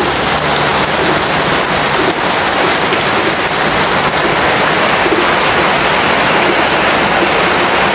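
Rain falling steadily, a loud even hiss.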